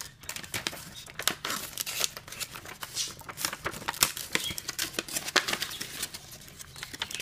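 Folded, stapled sheet of paper crinkling and rustling in irregular crackles as it is worked inside out by hand.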